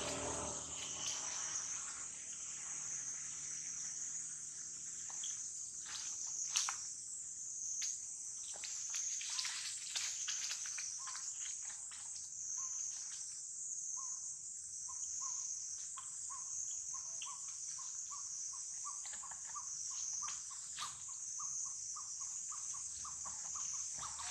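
Steady high-pitched insect chorus, with scattered short clicks and rustles. From about halfway through, a run of short repeated pips comes in, about two a second.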